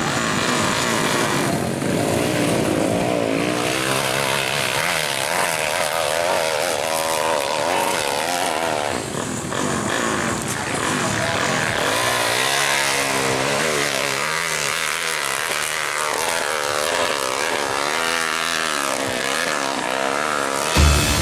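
Dirt bike engine revving hard on a steep hill climb, its pitch sweeping up and down over and over with throttle and gear changes. A loud low thump comes right at the end.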